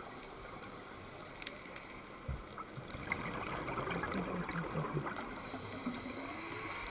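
Underwater ambience picked up by a diver's camera: a steady watery hiss with scattered clicks and crackles, and a short run of low pulses about four seconds in.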